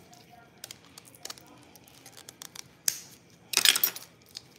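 A kitchen knife cutting open packaging: a run of light clicks and taps, then a short rustle just before three seconds and a louder crinkling rustle about three and a half seconds in.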